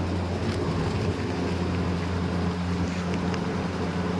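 Sawdust impact pulverizer running: a steady machine drone with a low hum.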